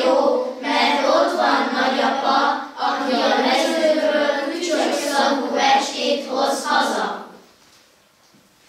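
A group of children singing together; the song ends about seven seconds in.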